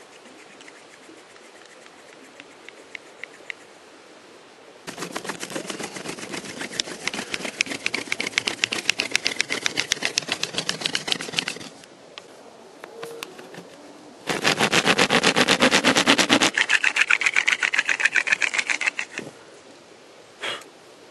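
Stone-tipped hand drill spun between the palms, its stone point grinding into bone: a rapid scratchy rasp in two long bouts with a pause between, the second bout louder.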